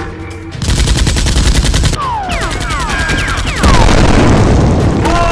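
Rapid machine-gun fire sound effect starting about half a second in, joined by several falling whistling tones. A loud explosion sound effect comes in about three and a half seconds in.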